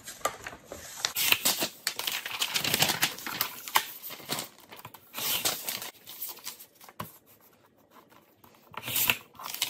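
Paper rustling, sliding and being cut as a printed sublimation transfer sheet is handled and trimmed on a Fiskars paper trimmer. The sound comes in bursts, with a quieter stretch in the second half and a short burst near the end.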